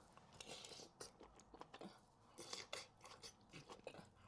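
Faint, close-miked chewing of a bite of sausage and boiled onion: wet smacks and small clicks of the mouth, in clusters.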